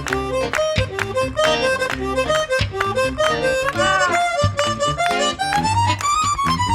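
Harmonica playing a solo melody, with a bent note that rises and falls about four seconds in, over rhythmic percussive acoustic guitar and bass notes.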